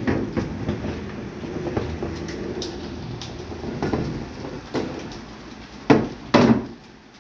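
HO-scale model train running on the layout track: an uneven rolling rumble with small wheel clicks, and two sharp knocks about six seconds in.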